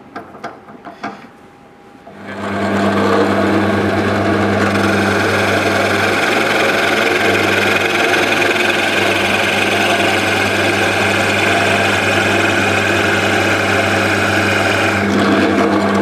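A few light clicks from the chuck, then a pillar drill's motor starts about two seconds in and runs steadily. A Bormax 2 Forstner bit (plain, no carbide inserts) bores into sapele, and its cutting noise sits over the motor's hum. The cutting eases off near the end while the motor keeps running.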